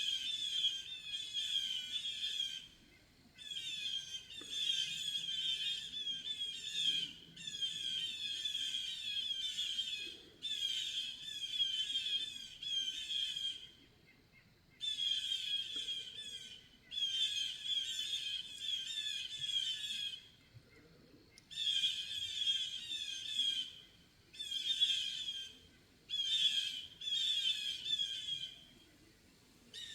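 Blue jays giving loud, harsh alarm calls, mobbing a Cooper's hawk that is in their territory. The calls come in about a dozen bouts of quickly repeated notes, each lasting one to three seconds, with short pauses between them.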